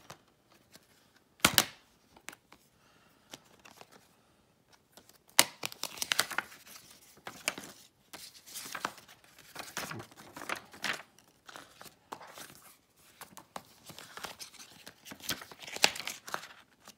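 Handling a plastic Blu-ray case and its paper inserts. A sharp plastic click comes about a second and a half in, then repeated crinkling and rustling of paper and plastic from about five seconds on.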